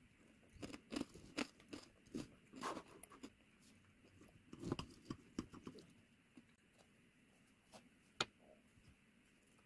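Close-up eating sounds: crunchy chewing of a yogurt bowl with granola and cornflakes, in two bursts of short crunches, then a single sharp click about 8 seconds in.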